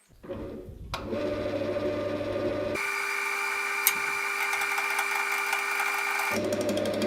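Electric woodworking power tool running with a steady hum. Its pitch switches abruptly about three seconds in and again near the end, where clips are cut together.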